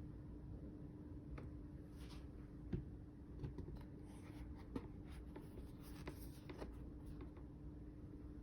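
Hands handling sneakers and their packaging: scattered soft rubbing and rustling with light taps and clicks, over a faint steady hum.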